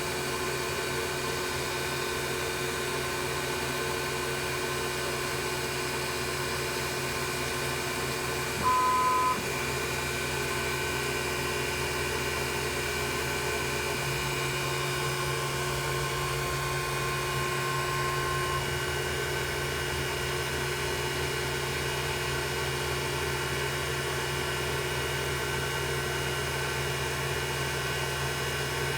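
CNC-converted Grizzly G0704 milling machine running steadily, a hum made of several fixed tones. About nine seconds in there is a short, loud electronic beep of two tones.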